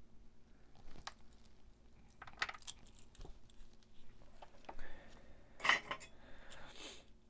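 Small hard clicks and metallic clinks of hand tools and parts being picked up and set down on a workbench, the loudest clink about five and a half seconds in, with soft rustling of handling between.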